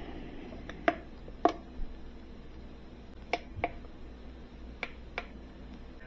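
A handful of light, sharp plastic clicks, spaced irregularly, as a portable jump starter is handled and the push buttons on its front panel are pressed.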